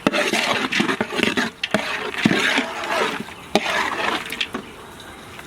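A spoon stirring and scraping through a pan of frying onion-tomato masala with cashews. A few sharp knocks of the utensil on the pan come in the middle.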